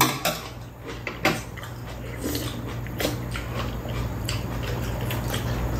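People eating at a table: chewing and mouth sounds, with a few short sharp clicks of metal chopsticks and spoons against bowls and the pan, the strongest right at the start and about a second in.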